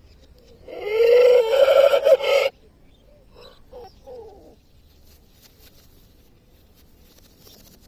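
A rooster crowing once, a loud call of about two seconds that cuts off sharply, followed by a few faint short calls.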